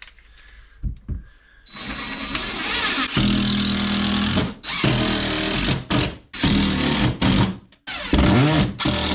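Power drill running in several runs: one long run of about three seconds starting about two seconds in, then a string of shorter squeezes of the trigger, with the pitch rising and falling near the end.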